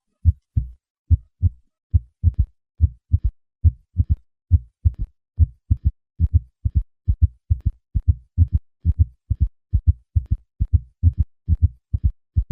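Recorded heart sounds from a patient with a gallop rhythm: a regular run of dull, low thuds, with extra diastolic heart sounds (third and/or fourth heart sounds) falling between the first and second heart sounds of each cycle, giving a galloping beat.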